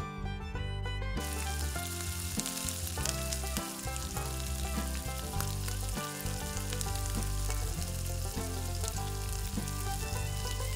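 Food sizzling and frying in a miniature iron kadai as diced potatoes and onions are stirred with a small spoon, with light clicks of the spoon against the pan. The sizzle starts about a second in and carries on steadily.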